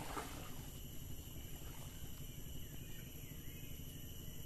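Faint outdoor mangrove ambience: a steady high insect drone over a low, even rumble.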